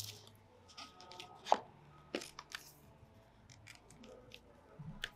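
Fingers handling an iPad's cardboard box and paper documentation sleeve: scattered light taps and paper rustles, the sharpest tap about a second and a half in.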